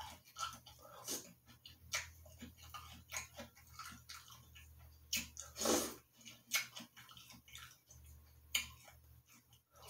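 Close-miked eating of Apple Pie Toast Crunch cereal in milk: crunching and wet chewing, with a metal spoon clicking against a glass bowl. There is one longer, louder slurp about halfway through.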